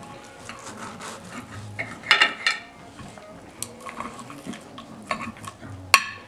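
Steel knife and fork scraping and clinking against a ceramic plate while cutting food, with a ringing clink about two seconds in and the sharpest knock on the plate just before the end.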